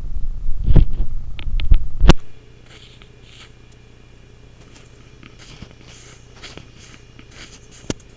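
Loud, low electrical hum picked up by a Logitech webcam's built-in microphone, with several knocks, cutting off suddenly with a sharp click about two seconds in. After that there is only faint hiss with light scratches and a single click near the end.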